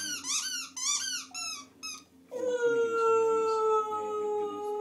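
Pet dog howling: a few short, high, rising-and-falling squeaks, about three a second, die away, then about two seconds in one long, steady howl starts and holds, sinking slightly in pitch.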